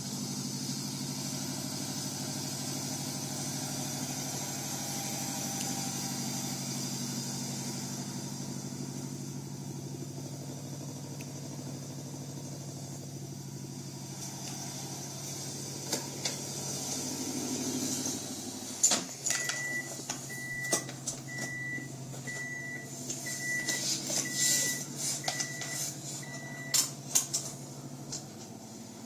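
Car engine idling with a steady low hum. About two-thirds of the way through, a row of about eight short high beeps, roughly one a second, sounds over it, along with scattered clicks and knocks.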